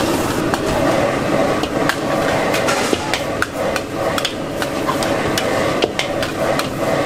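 Metal spatula clanking and scraping against a steel wok as pad thai is stir-fried and tossed, with irregular sharp clinks about two a second. A steady rush of the gas wok burner and frying food runs underneath.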